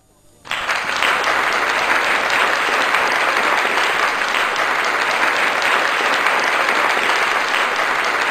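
Applause from a crowd. It breaks out suddenly about half a second in, right after the music stops, and continues as a dense, steady clapping.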